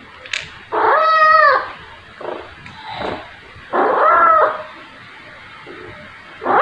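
A cat meowing for food: two loud meows about three seconds apart, each under a second long, rising then falling in pitch.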